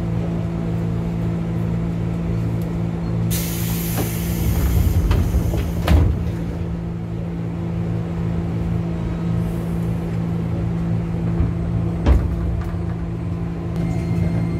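Electric commuter train cabin with its equipment humming steadily; about three seconds in there is a loud hiss of air as the sliding doors close, then a clunk about six seconds in as they shut, with another knock near twelve seconds.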